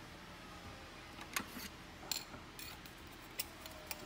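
Faint scattered clicks and light taps of a plastic spice container being handled and opened over a steel mixing bowl.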